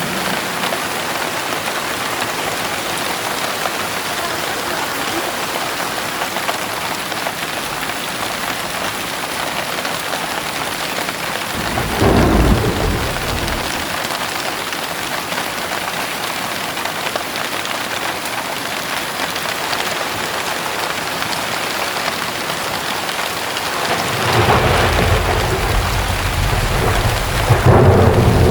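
Heavy rain falling steadily, with a short rumble of thunder about halfway through and a longer, louder rumble of thunder building near the end.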